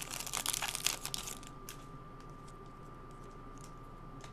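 Plastic wrapper of a trading-card pack crinkling as it is torn open and handled, dying away after about a second into a few faint clicks of cards being handled.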